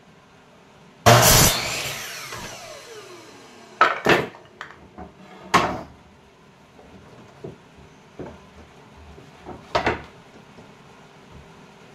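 Compound miter saw cutting a wooden board: a short loud run of the motor and blade about a second in, then the blade spinning down with a falling whine over a few seconds. Several sharp wooden knocks follow as boards are moved and set against the fence, and a second cut starts right at the end.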